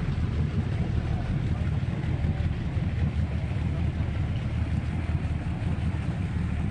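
Engine of a moored party boat idling with a steady low rumble, warming up at the dock, with faint voices around it.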